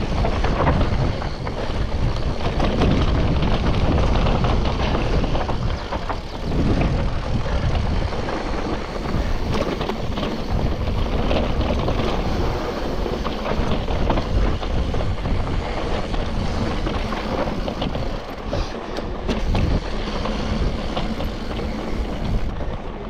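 Mountain bike riding down a rough trail: tyres rolling over rock and loose dirt, the bike rattling with many small knocks, and wind buffeting the microphone.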